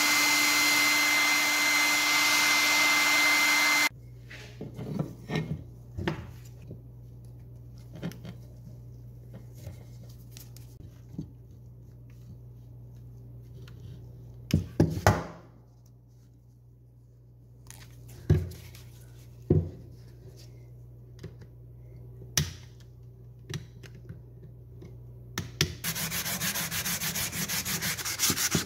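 A small motor whirs steadily for about four seconds and cuts off. Then come scattered scrapes and taps of a utility-knife blade on wood. Near the end, fast back-and-forth hand sanding starts along a wooden bed rail.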